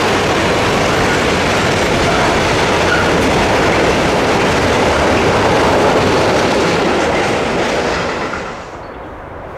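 Freight train of rail tank wagons rolling past close by, wheels running over the rails in a steady, loud noise. The sound drops away sharply about eight seconds in as the last wagon passes.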